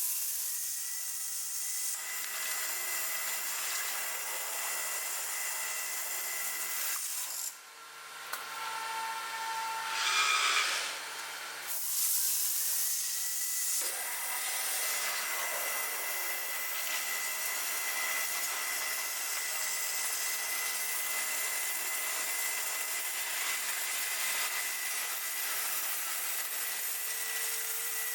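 AitalMAC Orbit A8 CNC stone-working machine running on a stone slab: a steady high hiss with a held whine. The sound drops away about seven seconds in and changes abruptly again around twelve seconds in.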